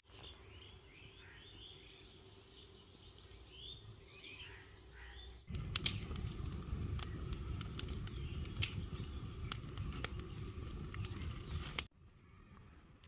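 Small birds chirping in short, repeated calls for the first few seconds. After a sudden change, a louder low rumbling noise with scattered sharp clicks runs for about six seconds and cuts off abruptly.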